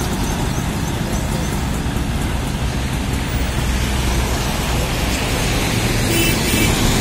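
Mobile crane's diesel engine running steadily as it holds a small metal shop cabin up on its hook. About six seconds in there is a brief higher-pitched sound.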